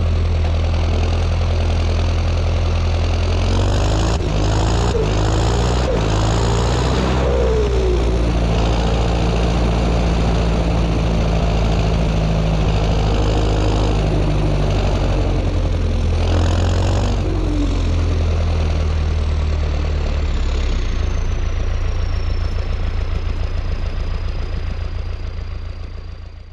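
John Deere 6230 tractor's four-cylinder turbo diesel running on the move, with a high turbo whistle over the engine. The sound swells and shifts in pitch about four to seven seconds in and again around sixteen seconds. Near the end the whistle slowly falls in pitch, and everything fades out.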